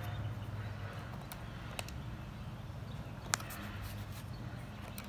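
Electric motor of a motorized transducer pole running, rotating the pole, with a steady low hum and three sharp clicks.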